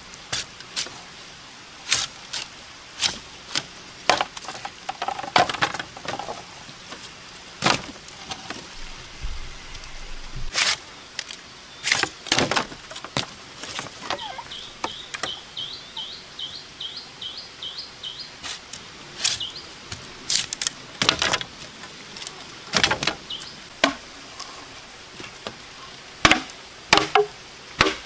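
Long-handled machete striking green bamboo culms: irregular sharp chops and cracks as the bamboo is notched and split. A quick run of high chirps sounds about halfway through.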